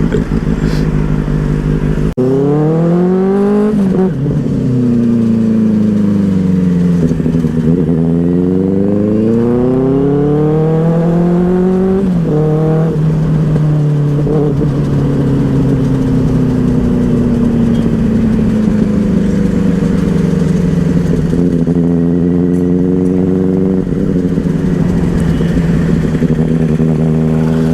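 Benelli 600i's inline-four engine accelerating, its note climbing and then dropping sharply at gear changes about four seconds and twelve seconds in. It then runs at a steady, slowly falling pitch while cruising.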